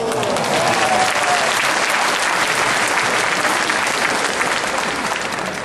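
Spectators clapping: applause breaks out suddenly and eases off slightly near the end.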